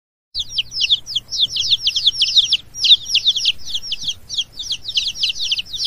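A brood of chicks peeping: rapid, overlapping high-pitched peeps, each sliding down in pitch, starting after a brief silence and keeping on without a break.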